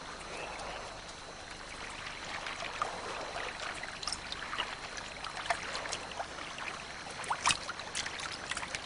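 Gentle water lapping and trickling at a river's edge, with many scattered small clicks and ticks, a few sharper ones about four and seven seconds in.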